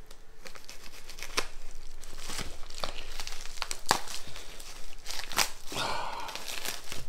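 Packing tape being sliced and torn open with a folding knife: irregular crackles and snaps of the tape and wrapping, with a longer rip about six seconds in.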